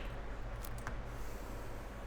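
Steady low electrical hum with two faint light clicks, a little after half a second and just before one second in.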